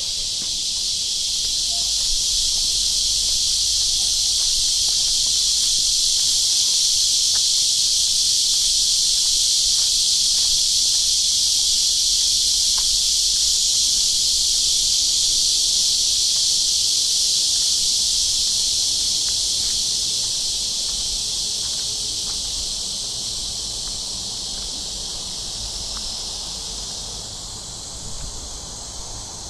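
Chorus of cicadas, a loud, steady, shrill hiss that swells over the first few seconds and fades gradually over the last third.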